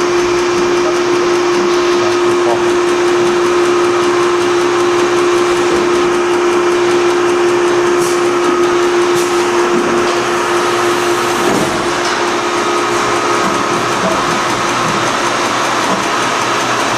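Gnutti rotary transfer machine running: a loud, steady mechanical drone with a humming tone that glides down and drops away about eleven seconds in, while a fainter higher tone continues.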